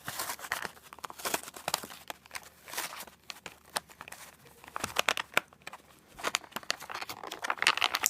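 Plastic packaging crinkling and rustling in irregular bursts, with small clicks, as an action figure is handled and its legs are fitted.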